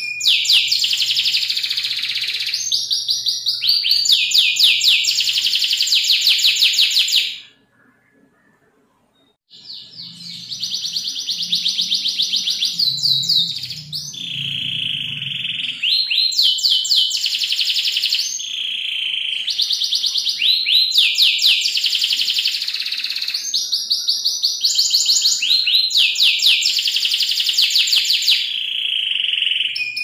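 Domestic canary singing a long song of rapid rolling trills and quick sweeping notes. The song breaks off for about two seconds around a quarter of the way in, then resumes.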